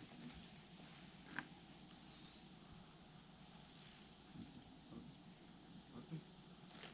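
Crickets chirping, a faint, high, steady trill with a second fainter pulsing chirp beneath it. A single short click sounds about a second and a half in.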